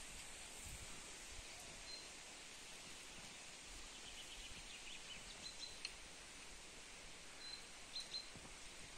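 Faint outdoor ambience with a steady high hiss and scattered small bird chirps, including a short twittering run about halfway through and a few brief high peeps near the end.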